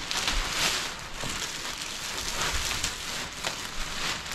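Clear plastic shipping wrap being pulled and crumpled, crinkling and rustling in uneven surges.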